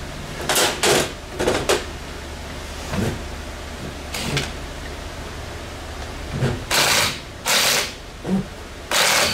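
Cordless impact driver hammering in about eight short bursts on the base valve bolt at the bottom of a dirt bike fork, trying to break it loose while the fork is squeezed sideways to hold the damper cartridge.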